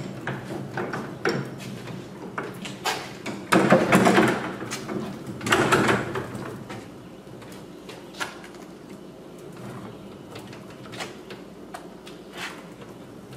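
Wooden box on small swivel casters rolling across concrete: a rumbling clatter of wheels and boards, loudest about four and six seconds in, then lighter knocks as the box is nudged into place.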